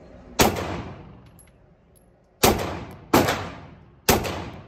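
Four pistol shots fired in an indoor shooting range, each ringing on in a short echo. There is a single shot, then after about two seconds three more in quicker succession.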